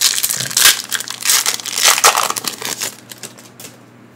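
Foil wrapper of a Pokémon TCG Vivid Voltage booster pack crinkling and crumpling as it is handled and opened, in quick loud bursts that die away about three seconds in.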